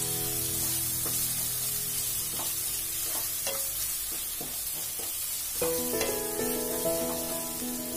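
A spatula stirring and scraping a thick spiced onion-tomato masala in a non-stick wok, with the oil sizzling underneath and a few sharp scrapes against the pan. Background music comes in during the first second or so and again near the end.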